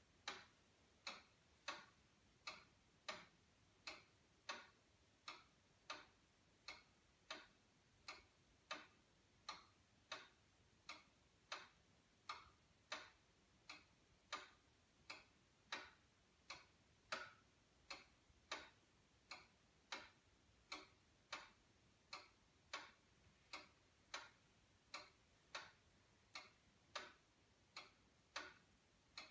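Georg Schildecker cuckoo-quail wall clock's pendulum movement ticking steadily, about three ticks every two seconds.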